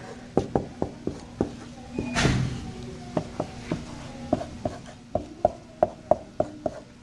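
Dry-erase marker writing on a whiteboard: an irregular run of quick taps as each stroke meets the board, with one longer rasp about two seconds in and short squeaks from the marker tip in the second half.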